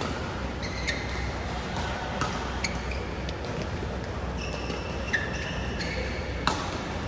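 Badminton rally: several sharp racket hits on the shuttlecock, a second or more apart, with short high squeaks of shoes on the court mat between them.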